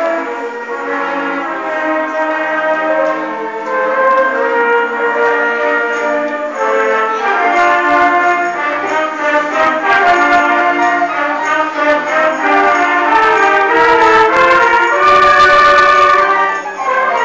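School band, led by brass, playing a piece with sustained chords under a conductor. It swells to its loudest with a crash-like hiss about fifteen seconds in, then dips briefly just before the end.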